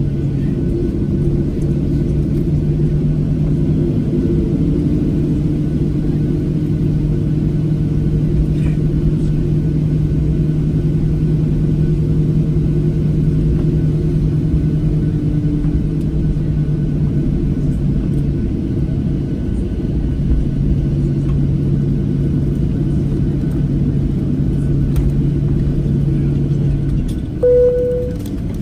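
Cabin noise of a Boeing 737-700 taxiing after landing: a steady low rumble with engine hum. Near the end comes one short chime tone, and the hum drops off after it.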